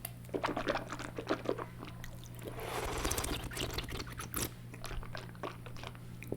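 ASMR wet mouth sounds close to the microphone: a quick run of wet tongue and lip clicks, a longer wet swishing sound around the middle, then a few more scattered clicks.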